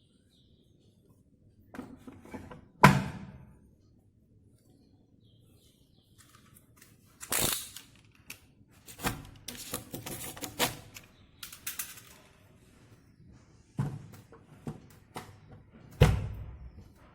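Irregular knocks and thuds with some rustling and scraping in between, typical of handling a washing machine and its packaging. The loudest thud comes about three seconds in, with another near the end.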